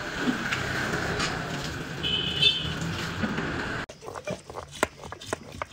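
Steady rushing background noise with a brief high tone about two seconds in. It cuts off suddenly and gives way to a series of sharp, irregular knocks and scrapes: a stone grinding roller being worked back and forth over a flat stone slab, grinding green leaves.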